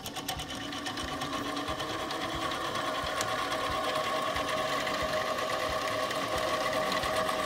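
Harbor Freight mini lathe running, its motor and gear train giving a steady whine with a fast mechanical whir, growing a little louder as a 60-degree threading tool is fed into spinning aluminum bar stock to cut a groove.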